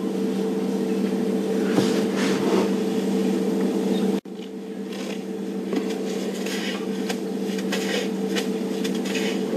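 A steady low hum, with soft rustling and crackling of dry grass as elephants pull it up and feed. The sound cuts out for an instant about four seconds in.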